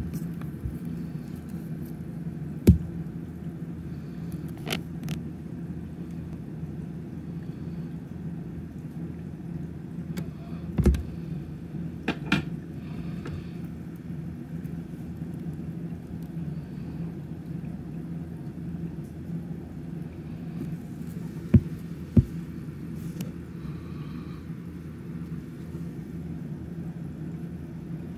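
A steady low hum runs throughout. A few short, sharp knocks cut through it: one about 3 seconds in, others around 11 and 12 seconds, and two in quick succession near 22 seconds.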